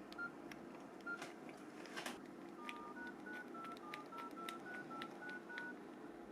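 Nokia E65 keypad beeping as keys are pressed: short tones at slightly different pitches, each with a small key click, two early on and then a quick run of about a dozen.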